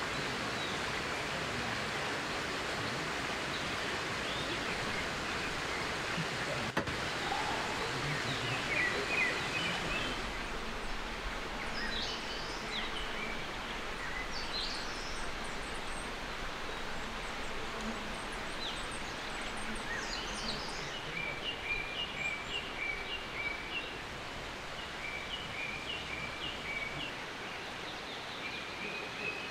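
Outdoor ambience: a steady rushing hiss with small birds chirping. From about a third of the way in come scattered calls, and in the second half a bird repeats a run of short, high notes.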